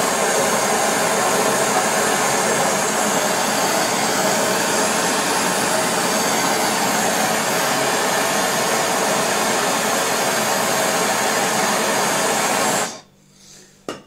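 MAPP gas hand torch burning with a steady hiss as its flame heats the end of a copper pipe to red heat. The flame is shut off abruptly near the end, followed by a single short click.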